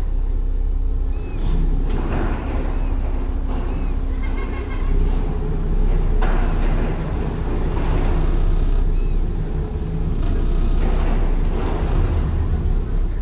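Steady low rumble of an Emerald-class ferry's twin Yanmar 6AYEM-GT six-cylinder diesel engines running, heard from the open deck with wind and water noise over it.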